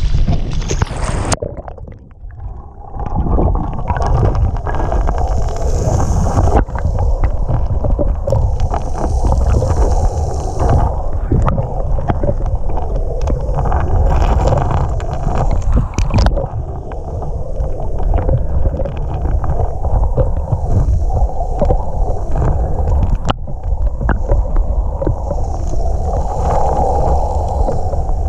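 Small waves splashing at the surface, then, from about two seconds in, the muffled rushing and gurgling of lake water heard underwater over a pebble bed, with a few sharp clicks.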